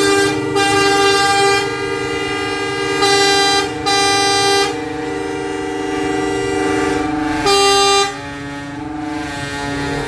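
Several coach air horns sounding at once in long, overlapping held blasts at different pitches, with louder blasts coming and going: twice in the first second and a half, twice around three to four and a half seconds in, and once at about seven and a half seconds.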